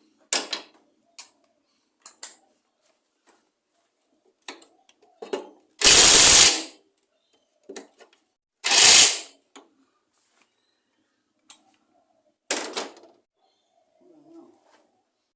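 A power driver runs in two short bursts, about six and nine seconds in, undoing the nutted bolts that hold a lawn mower engine to its deck. Scattered clicks and clinks of hand tools on metal come between the bursts.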